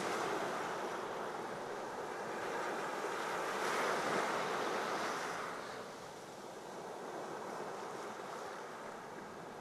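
Surf washing on a sandy beach: a steady rush of waves that swells about four seconds in and then eases.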